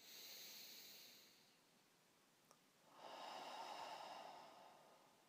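Two faint, breathy swells of sound, one at the start and one about three seconds in, each lasting about a second and a half, with a small click between them.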